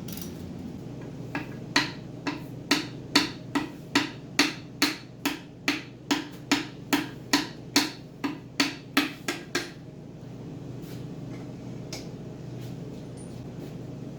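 A hammer striking metal about twice a second, some twenty even blows over eight seconds, each with a short ring, over a steady low hum.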